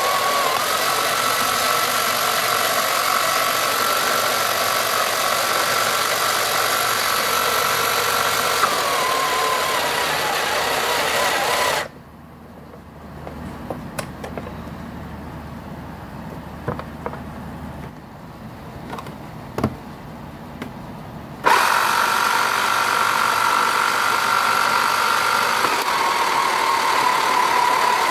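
1979 Tomy Hit and Missiles toy running on its replacement motor, with a steady whirring noise and a high whine that rises slightly and later slides down. About twelve seconds in it cuts off for roughly ten seconds, leaving only a few sharp clicks of the controls, then starts again abruptly and the whine slides down once more.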